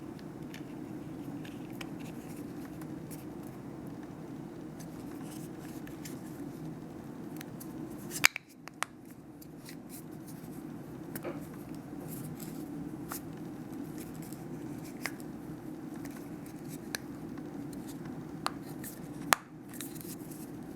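Light plastic clicks and taps of a key fob case being handled and pressed together, with a sharper click about eight seconds in and another near the end, over a steady low hum.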